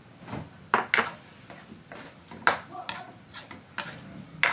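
A metal ladle stirring snails in their shells in an aluminium wok, with sharp clacks of ladle and shells against the pan, about six in all.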